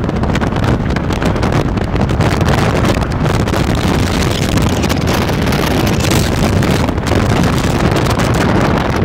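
Steady wind rushing over the microphone of a camera riding on a moving motor scooter, mixed with the scooter's engine and road noise.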